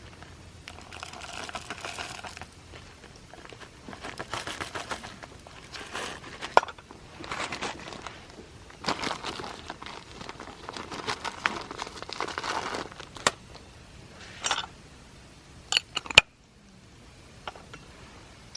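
Crinkling and rustling of something being handled, in uneven bursts, with a few sharp clicks and taps, the loudest about a third of the way in and two close together near the end.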